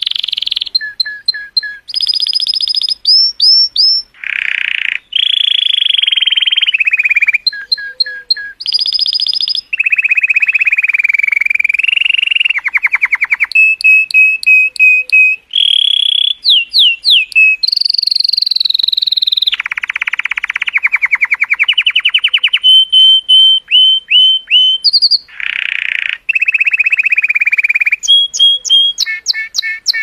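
Colour canary singing a long, nearly unbroken song. It moves from one phrase to the next every second or two: fast rolling trills, runs of quick repeated notes and short slurred whistles.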